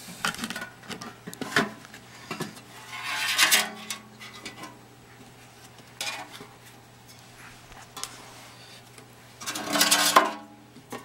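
Sheet-metal case and chassis of a vintage vacuum-tube RF signal generator being handled and taken apart: scattered clicks and knocks of metal, with two longer metal scrapes, one about three seconds in and a louder one near the end.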